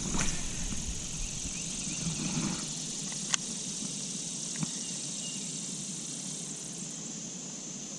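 Insects droning steadily in a high-pitched band, with a few sharp clicks over it.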